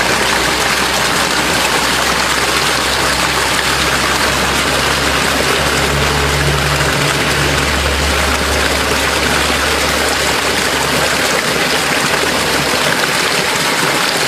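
Spring water gushing out of a rocky cave mouth, a steady rushing. A low rumble sits underneath from about four seconds in until about ten seconds in.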